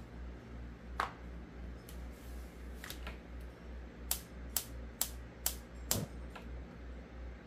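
Gas range burner igniter clicking as the burner is lit: a few sharp clicks, then a steady run of about two clicks a second, the last one a heavier knock. A low steady hum runs underneath.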